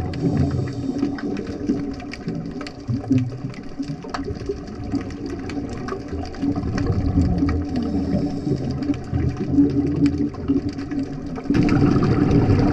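Underwater noise picked up by a dive camera in its housing: a steady muffled water rumble with many scattered crackling clicks, swelling to a louder rush about eleven and a half seconds in.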